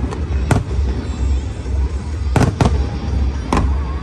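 Aerial fireworks shells bursting: a sharp bang at the start and another half a second later, a quick run of three bangs a little past two seconds in, and one more near the end, all over a continuous low rumble.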